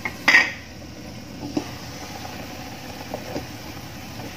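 Wok of broth heating on a gas stove burner under a glass lid, giving a steady low rushing sound, with a short clatter of cookware just after the start and a few faint knocks later.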